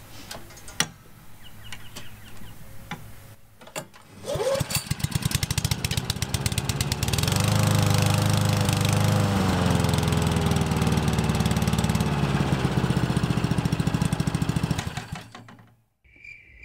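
Honda HRU196 Buffalo Pro push mower's four-stroke engine pull-started, catching on the first pull about four seconds in. It revs up and runs steadily for about ten seconds, then is shut off and spins down to a stop. Just before the end a pulsing high chirping begins.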